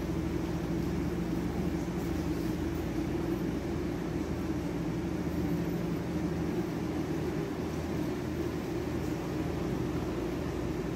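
Steady background hum and hiss with a low droning tone, unchanging throughout.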